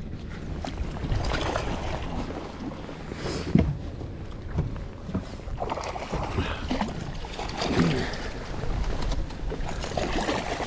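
Wind buffeting the microphone and water slapping against a boat's hull, with a hooked bass splashing at the surface beside the boat near the end.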